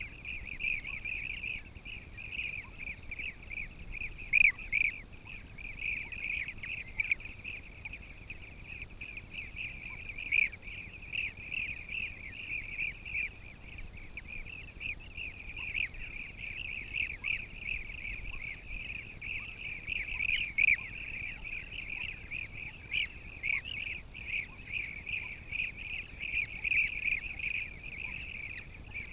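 Blue-cheeked bee-eaters calling: a continuous chorus of many short, high calls overlapping without a break, with now and then a louder call from a nearer bird.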